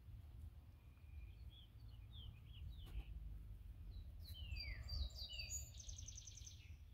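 Faint songbird calls: a string of short high chirps, then two falling whistled notes about four seconds in and a quick trill near the end, over a low steady background rumble.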